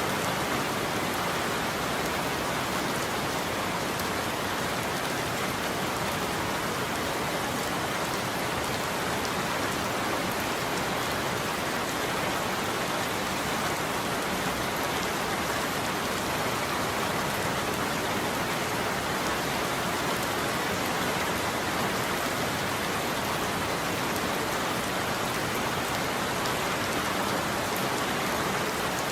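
Steady heavy rain falling on a roof, an even, unbroken patter.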